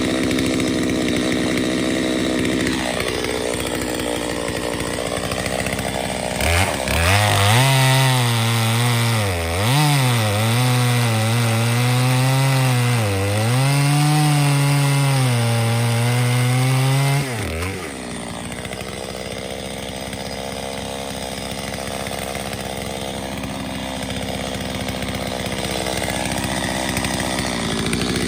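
Two-stroke chainsaw running and cutting into a log round. About six seconds in it revs hard into the wood, its pitch dipping and recovering under load for about ten seconds, then eases to a lower, steadier run.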